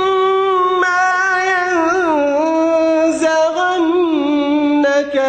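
A man's voice chanting Quranic recitation in melodic tajweed style, drawing out long, gently wavering held notes with few breaks.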